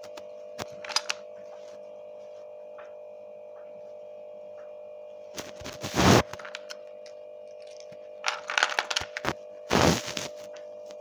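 Small plastic toy figures clattering and rattling in short bursts as they are handled in a plastic box, loudest about six seconds in and again near ten seconds, over a steady faint hum.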